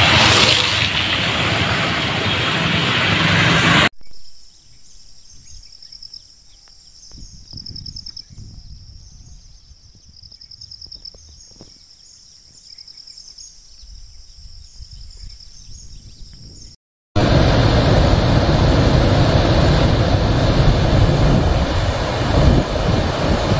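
Motorcycle passing on a wet road with traffic noise, then a quiet stretch with faint high chirping, then from about 17 seconds in the steady rush of muddy floodwater pouring over a weir.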